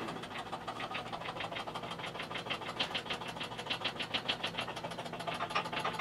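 A ratchet tool clicking rapidly and steadily, about eight to ten clicks a second.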